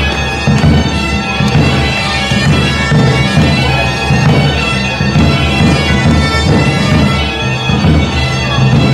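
Bagpipe and drum playing dance music: the pipe's steady drone sounds under the melody, with a regular drumbeat.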